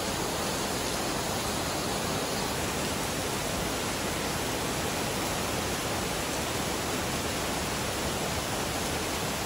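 Heavy rain pouring steadily onto trees and waterlogged ground: a dense, even hiss that holds at one level.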